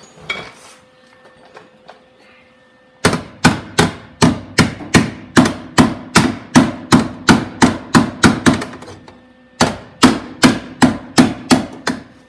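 Hand hammer striking sheet steel in quick, even blows, about four a second, beginning about three seconds in, with a short pause before a second run. The new inner front wheel-well panel of a 1971 VW Super Beetle is being bashed tight against the body after tack welding.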